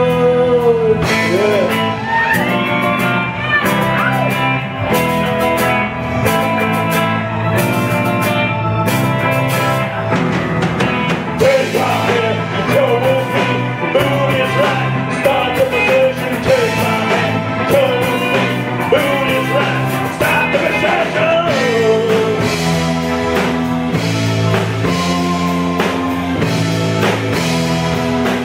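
A live rock band playing a doom-blues song: distorted electric guitar, bass and drum kit, with a woman singing a wavering vocal line over much of it.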